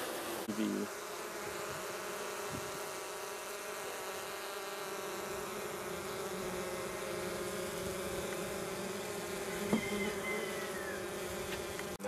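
Many honey bees buzzing together in a steady, even drone, with a light tap about ten seconds in.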